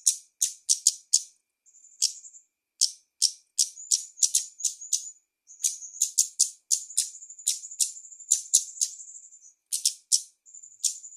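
Female kemade bird calling in the rapid, sharp, chattering 'konslet' style that bird-keepers use as master recordings for training songbirds. Clusters of quick high chips alternate with buzzy trills that are held for a second or two.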